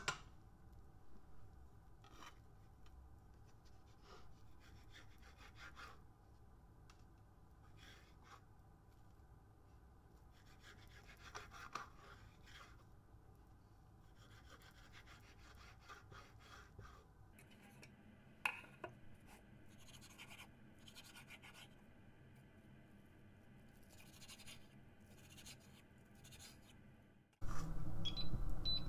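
Chef's knife cutting an egg omelette into strips on a wooden cutting board: soft, scattered cuts and scrapes. Near the end a louder scene begins, with an induction hob's touch controls beeping a few times.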